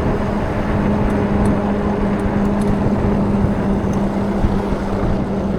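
E-bike riding on a leaking, underinflated tyre: a steady low hum, likely the motor, over wind and road rumble.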